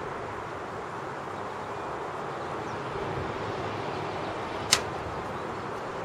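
Steady outdoor background noise, with one sharp pop from the burning wood and charcoal in a Brinkmann Sportsman smoker about four and a half seconds in.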